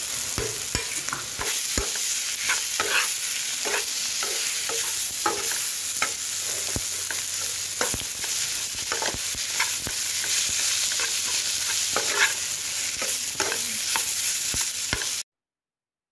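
Mashed elephant apple and potato paste being stirred and fried in oil in a non-stick kadai: a spatula scrapes and taps against the pan over a steady sizzle. The sound cuts off suddenly near the end.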